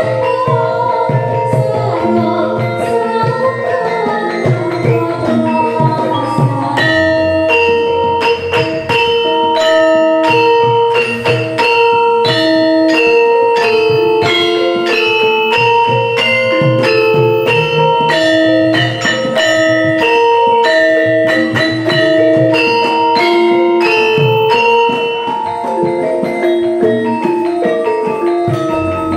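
Javanese gamelan ensemble playing in pélog tuning. For the first six or seven seconds a woman sings over it. From there on the saron and demung metallophones strike a loud, steady, ringing melody, with kendang drum strokes underneath.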